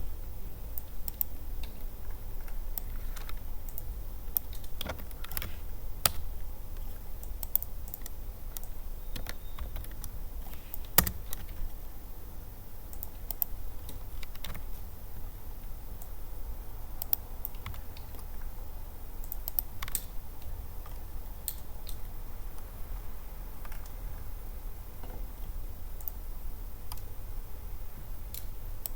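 Typing on a computer keyboard: irregular key clicks, sometimes in quick runs, with a few louder single taps, over a low steady hum.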